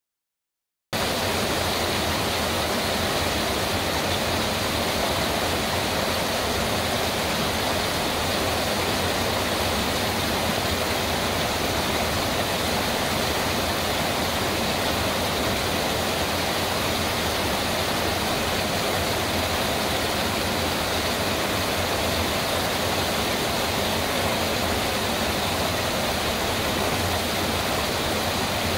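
Small waterfall cascading over rocks into a creek pool: a steady rush of water that starts about a second in.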